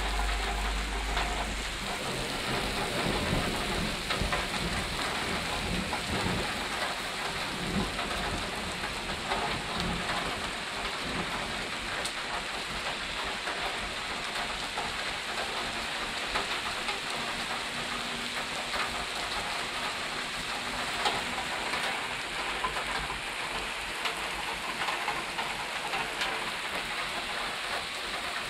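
Steady rain falling in a thunderstorm, with scattered drips and patters on nearby surfaces. A low rumble of thunder dies away within the first couple of seconds.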